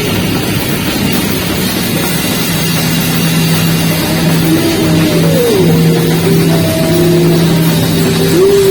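Loud live band music, with drums under a held low note. Sliding melodic notes come in about halfway through.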